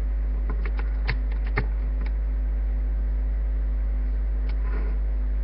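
Rotary range selector of a digital multimeter clicking through its detents as it is turned to the ohms range: a quick run of small clicks about a second in, with one more later. A steady low mains hum runs underneath.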